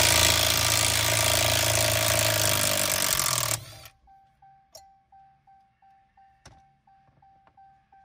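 Cordless impact tool hammering for about three and a half seconds on the steering wheel's centre retaining bolt, then cutting off. Afterwards the truck's warning chime ticks faintly, about three times a second.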